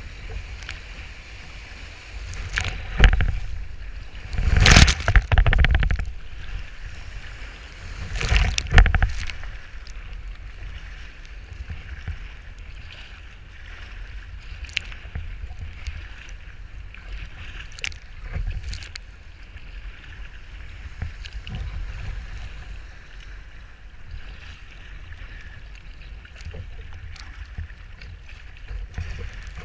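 Water sloshing and splashing around a sea kayak paddled through surf, with wind buffeting the deck-mounted camera's microphone as a steady low rumble. Three loud rushes come about 3, 5 and 8 seconds in as breaking waves wash over the bow, then smaller splashes.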